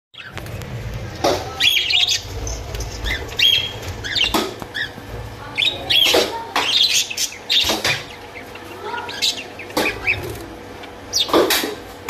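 A flock of budgerigars and cockatiels chirping and calling in an aviary: sharp, loud calls about once a second over continuous chatter.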